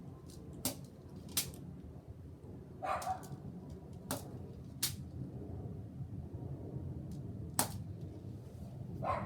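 Crosman SNR 357 CO2 air revolver firing: five sharp cracks, in two quick pairs and then a single shot. A dog barks twice in between.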